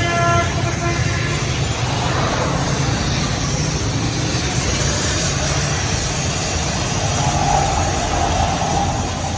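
Car engine idling steadily, a low hum over street noise.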